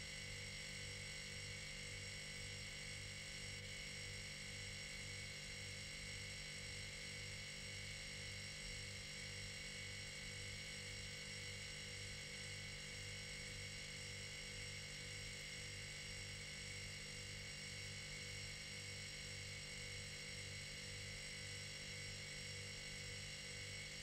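Old refrigerator running with its compressor on: a steady electrical hum and buzz with a slow, even throb in the low hum.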